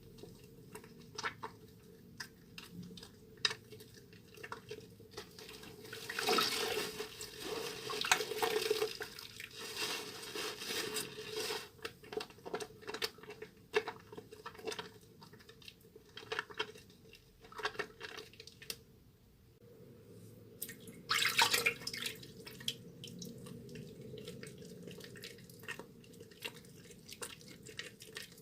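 Soaked, softened Duru Gourmet bar soap being squeezed and lathered with wet hands: irregular wet squishes, clicks and drips, with louder stretches of rubbing about six to nine seconds in and again about twenty-one seconds in.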